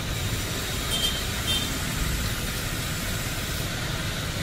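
Steady outdoor street ambience: a low rumble of road traffic, with two brief high chirps about a second in.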